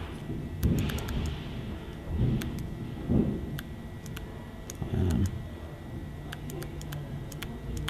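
S Pen stylus tip tapping and dragging on the Samsung Galaxy Note 2's glass touchscreen while handwriting, giving many small irregular clicks, with a few soft low thuds among them.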